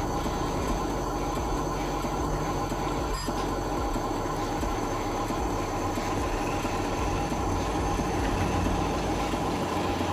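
Electric motors and plastic gearboxes of a remote-control model construction truck, running steadily with a whine.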